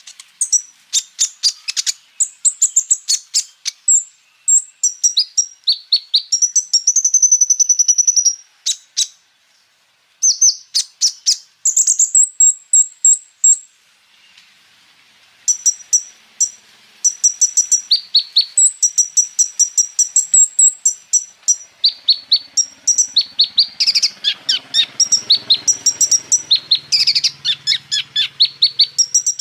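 Kolibri ninja (konin) sunbird singing a fast, full song of rapid high chirps and trills, with two short breaks about a third and half of the way through.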